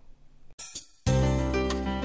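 Instrumental background music that starts abruptly about a second in, with struck keyboard-like notes over sustained tones; before it, a moment of quiet.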